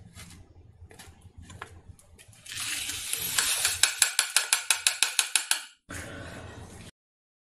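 Dry popping-candy granules pouring out of a shaken paper sachet into a bowl: a grainy rattle pulsing about six times a second with each shake, stopping short a little after halfway.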